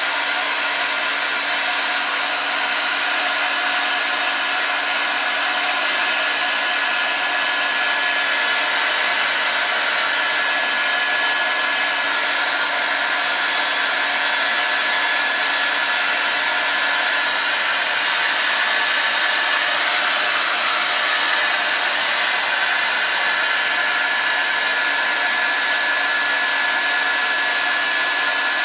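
Handheld hot-air blower running steadily: a constant rush of air with a steady motor whine. It is heating the shoe's heel cup to soften it for reshaping.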